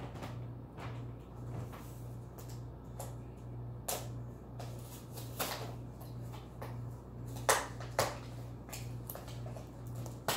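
A cockatoo cracking and crunching an almond with its beak: scattered sharp cracks and clicks, the two loudest about half a second apart some seven and a half seconds in.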